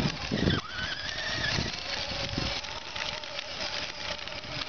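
Battery-powered children's ride-on toy motorcycle driving along, its small electric motor whining steadily, with a brief high gliding squeal about a second in.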